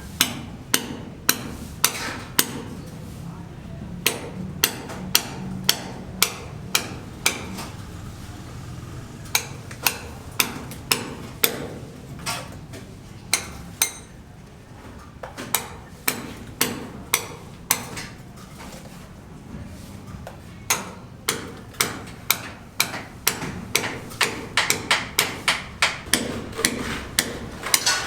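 Hammer blows: a long run of sharp, separate strikes at about one or two a second, quickening to a rapid flurry a few seconds before the end.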